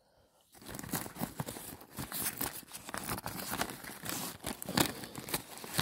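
Rustling and crinkling of a scouring pad and the fabric kitchen bag being handled as things are pulled from its lid pocket, starting about half a second in and going on irregularly.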